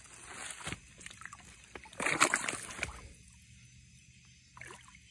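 A large blue catfish splashing and sloshing in shallow water as it is let go back into the river, with the biggest splash about two seconds in and a smaller one near the end.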